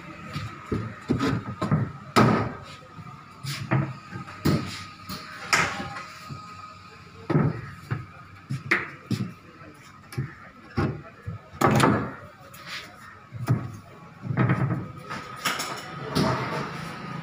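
Irregular knocks and thuds of box-type cot parts being fitted and tapped together during assembly, about one or two a second, some sharp and loud.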